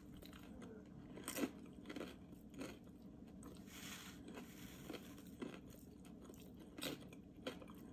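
Faint chewing of a crispy fried egg roll: soft mouth sounds with a scattering of small crunches and clicks, about one a second.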